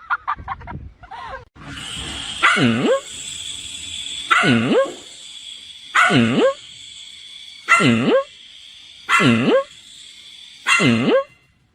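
A dog barking six times at an even pace, about one bark every second and a half, each bark drawn out and dropping in pitch, over a steady high hiss.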